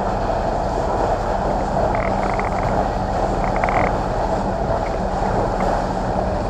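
Passenger boat's engine running steadily under way, a low hum beneath the rush of water along the hull, with wind buffeting the microphone.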